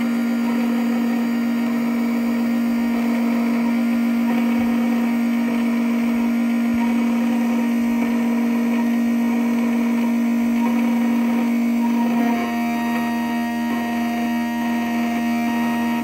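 Black Widow key-cutting machine's spindle motor running with a steady whine while its cutter mills a groove into a brass key, the cut adding a grinding hiss. The tone and texture shift about twelve seconds in as the cut moves on.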